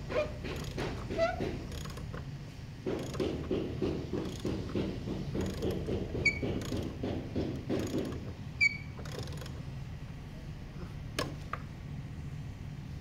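Hand ratchet tool clicking in a rapid, even run for about five seconds while fasteners are worked on a personal watercraft's jet pump to remove the impeller, with two short high chirps and a single sharp click later, over a steady low hum.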